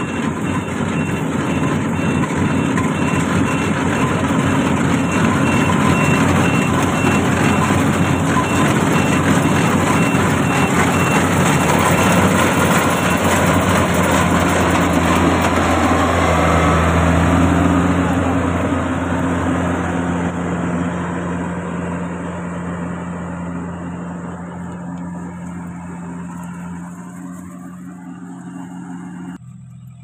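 Yanmar YH700 rice combine harvester running while it cuts rice: the diesel engine's steady drone together with the noise of the header and threshing machinery. It grows louder toward the middle, then fades over the last several seconds.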